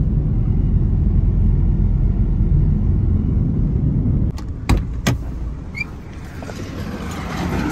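Road and engine noise inside a moving car's cabin: a steady low rumble that eases about four seconds in. Two sharp knocks come a little over halfway through, and a hiss of air grows toward the end.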